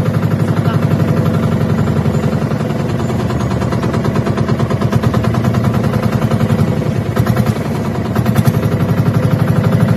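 Small inboard engine of a motorized outrigger boat (bangka) running steadily under way, with a rapid, even chugging pulse.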